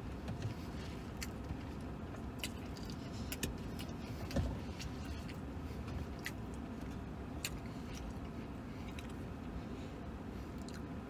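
A man chewing a mouthful of sandwich, with scattered wet mouth clicks and a soft thump about four seconds in, over a steady low rumble inside a truck cab.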